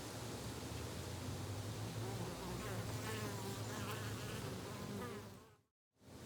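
A flying insect buzzing, its drone wavering up and down in pitch as it moves about. The sound fades out to a moment of silence near the end, then comes back.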